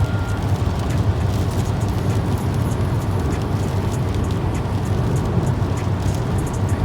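A car driving on a wet motorway: a steady low road and engine rumble with the hiss of tyres on rain-wet tarmac.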